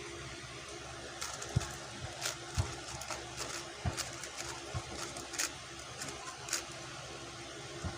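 QiYi X-Man Tornado V2 3x3 speedcube being turned: scattered, irregular clicks of its layers snapping into place, over a steady low hum.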